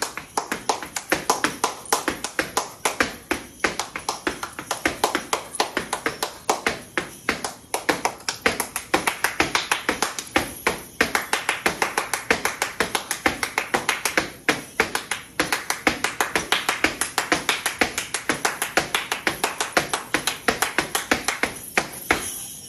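Flamenco hand-clapping (palmas) in a fast, steady rhythm of about five sharp claps a second, stopping just before the end.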